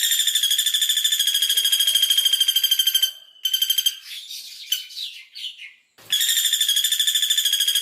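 Female caladi bawang, a small woodpecker, giving its rapid dense trill ('tembakan'), a fast even string of high notes. It comes as a long bout, a short second bout, and a few scattered chirps, then another long trill starts about six seconds in.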